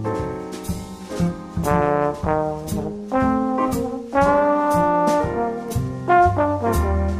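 Background instrumental music: a melody of held and changing notes over a steady beat, with a cymbal ticking about twice a second.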